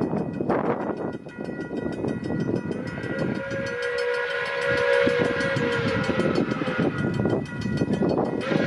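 Steam locomotive whistle blowing a long blast starting about three seconds in and lasting about four seconds, then sounding again near the end, over the steady rumble of the passing train.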